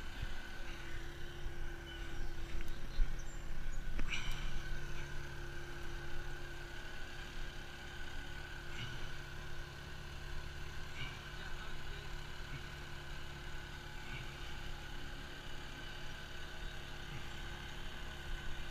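Boat motor running steadily at low speed, a constant hum under low rumble, with a few knocks and rustles as branches are handled, the sharpest about four seconds in.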